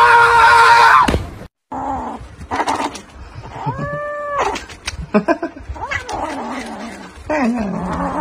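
Kitten mewing and crying while it bites at a lickable treat tube, with one clear drawn-out meow, rising then falling, about four seconds in. Before that, a loud held tone fills the first second and cuts off abruptly.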